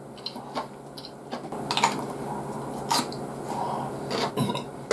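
Close-up eating sounds of a man taking miso soup with chopsticks from a bowl: scattered small clicks and a few short mouth sounds of sipping and chewing.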